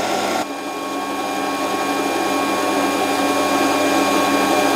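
Warco WM180 mini lathe running under a cut on a metal bar, its carriage fed along by a stepper-motor power feed: a steady motor whine with a few held tones over cutting noise, dipping briefly about half a second in and then growing slightly louder.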